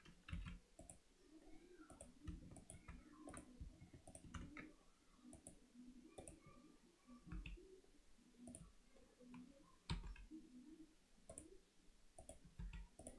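Faint, irregular clicks of a computer keyboard and mouse, about one a second, with a sharper click about ten seconds in.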